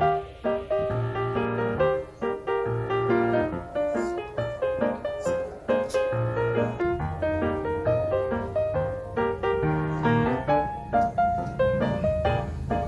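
Background piano music: a busy melody of quick notes over a steady low bass line.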